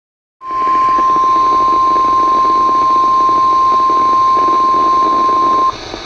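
NOAA Weather Radio warning alarm tone, a steady 1050 Hz beep, from a RadioShack weather radio's speaker. It is held for about five seconds over a faint static hiss and cuts off sharply near the end. The tone signals that a warning broadcast is about to follow.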